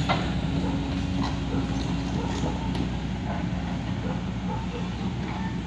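A backhoe's diesel engine running steadily at low revs, with a fast, even throb.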